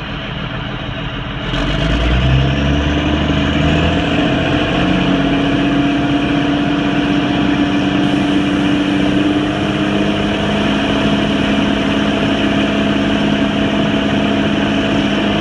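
1997 Peterbilt concrete mixer truck's diesel engine running while it turns the mixing drum; about a second and a half in the engine speed rises and the sound gets louder, then holds steady.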